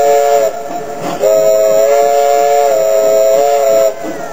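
Steam locomotive's chime whistle blowing a three-note chord: a blast that ends about half a second in, then a second, longer blast of nearly three seconds. The train's running noise lies underneath.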